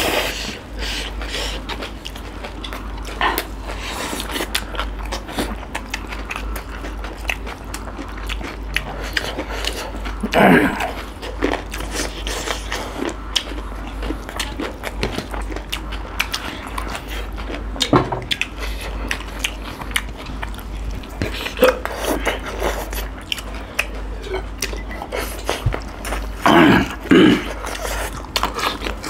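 Close-up eating sounds of two people eating vegetable singju salad and rice by hand: steady chewing, crunching and lip smacking made of many small clicks, with a few brief louder sounds, the loudest near the end.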